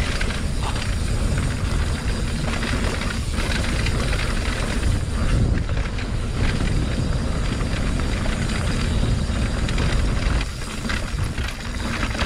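2020 Norco Torrent HT S2 steel hardtail mountain bike riding down a wet trail: tyres rolling and skidding over dirt and rock, with the bike rattling and clattering over bumps over a steady low rumble.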